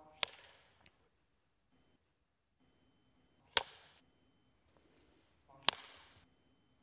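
Film clapperboard snapped shut three times, each a single sharp clack with a short ring-off, about two seconds apart.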